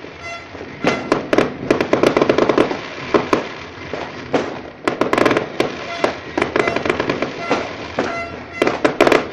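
Aerial fireworks going off in rapid volleys of sharp bangs and crackles, with short lulls between the volleys.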